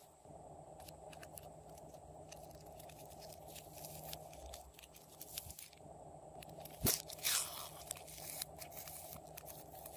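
Slime being handled by hand: pink store-bought slime stretched, torn and pulled out of its cup, giving sticky crackling and many small clicks. One sharper, louder click comes about two-thirds of the way through.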